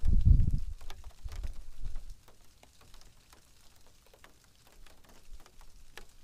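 Wind buffeting the microphone in low gusts for about the first two seconds, then dying away, leaving only faint scattered ticks.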